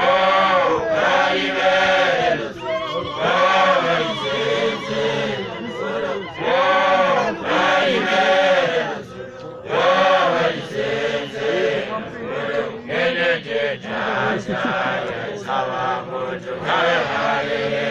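A group of voices chanting or singing together in repeated phrases that rise and fall, each lasting a second or two with short breaks between, turning choppier near the end.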